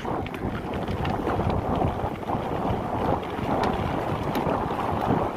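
Mountain bike riding fast downhill on a dirt trail: wind rushing over the camera microphone with the tyres rumbling over the ground, and scattered short clicks and rattles from the bike over bumps.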